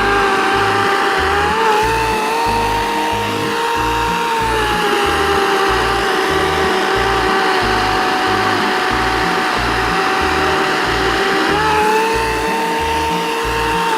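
EGO CS1804 18-inch 56 V cordless electric chainsaw running at full speed while cutting through a tree limb, a steady high motor whine. The pitch rises about two seconds in and again near the end, as the chain runs freer, and drops back for several seconds in between while it is loaded in the wood.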